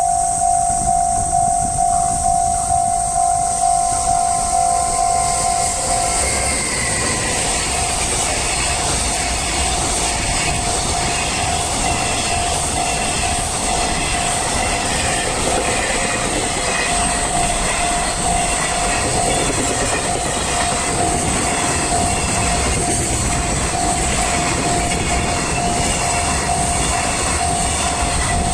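Japanese level-crossing warning bell ringing in a steady pulse, about twice a second, while a train runs over the crossing from about six seconds in, its wheels rumbling and clicking over the rail joints.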